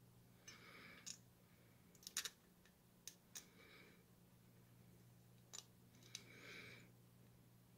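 Near silence, with faint clicks and taps from a printed circuit board being handled on a bench, a few brief soft hisses, and a low steady hum under it all.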